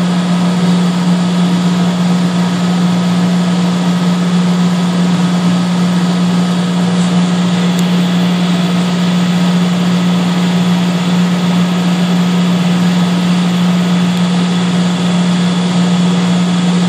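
Steady, loud drone of running oil-fired boiler-room machinery (1966 Cleaver Brooks boiler plant), dominated by a strong low hum that does not change.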